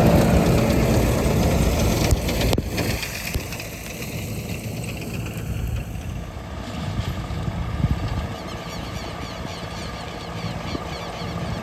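Harvest machinery engine running steadily. It is loudest at first and eases down within the first three seconds, with a single sharp click about two and a half seconds in.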